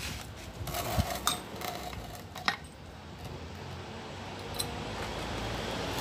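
Small metal engine parts and hand tools clinking and tapping against each other during a motorcycle engine teardown, a few separate sharp clicks, over a hiss that grows louder toward the end.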